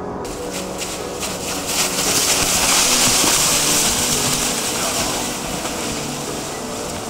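A dead wild boar dragged across snow and dead leaves: a hissing scrape that swells about two seconds in and eases off after about five seconds.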